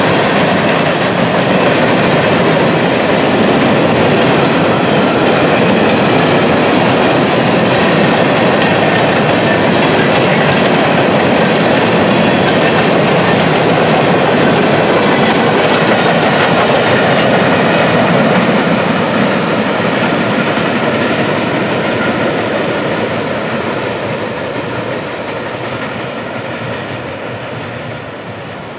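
Empty steel-coil freight cars rolling past on the rails with loud, steady wheel-on-rail noise, fading gradually from about two-thirds of the way through as the end of the train moves away.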